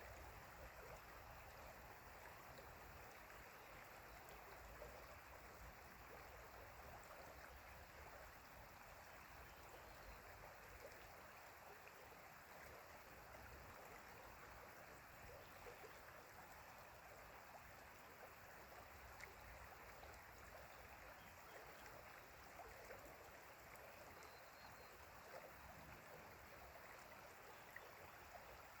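Faint, steady rushing of a flowing stream.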